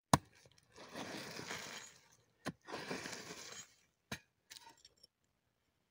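A digging hoe striking dry, hard-packed earth: three sharp blows, the first the loudest, each followed by about a second of scraping and crumbling soil as the clods are dragged loose.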